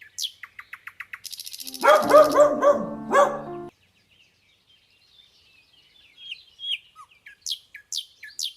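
Birds chirping in quick high notes and a short trill, joined about two seconds in by a louder, pitched animal call that stops abruptly, then after a pause more chirping near the end.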